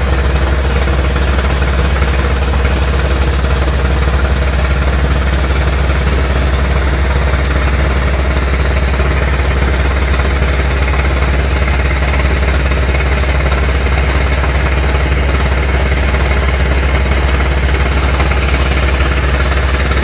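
A large engine running steadily at a constant speed, with a strong low rumble and no change in pitch.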